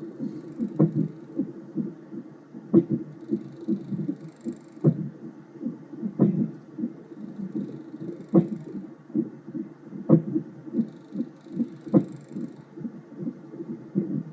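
Unborn baby's heartbeat heard through a fetal Doppler as a fast, whooshing pulse, with the baby's hiccups cutting through as sharp thumps, seven of them about every two seconds.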